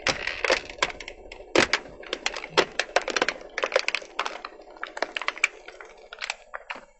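Plastic toy bus cracking and snapping under a slowly rolling car tyre: a rapid, irregular run of sharp crackles that thins out near the end.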